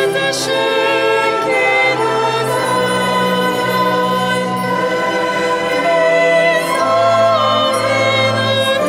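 A choir singing with a small orchestra of students, in long held chords over low sustained notes, with a triangle struck lightly a few times.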